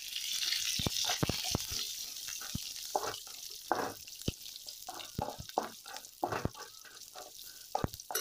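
Curry leaves, chana dal and mustard seeds sizzling in hot oil in a kadai during tempering. The hiss fades over the first few seconds, leaving scattered pops and the scrapes and clicks of a wooden spatula stirring.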